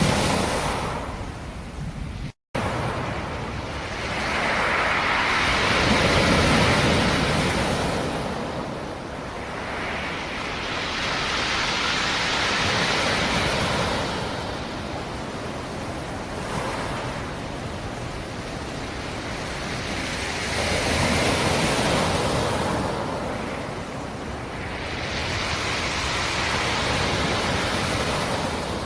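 Black Sea surf: waves rolling in and breaking on the shore, the noise swelling and falling away every six to eight seconds. A split-second cut-out of all sound comes about two and a half seconds in.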